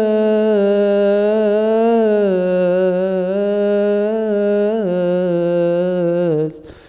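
A man's voice singing one long melismatic phrase of Coptic liturgical chant, slowly wavering and stepping down in pitch twice, then breaking off for a breath near the end.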